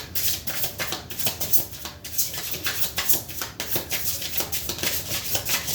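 Tarot cards being shuffled by hand: a rapid, irregular run of clicks.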